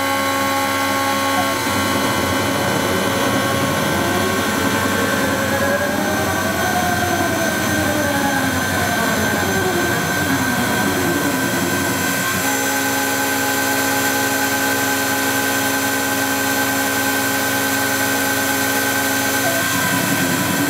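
Pro Light CNC mill cutting machinable wax: a steady motor whine, with machine whines that slide up and down in pitch for several seconds as the cutter changes direction, then hold steady tones for several seconds near the end.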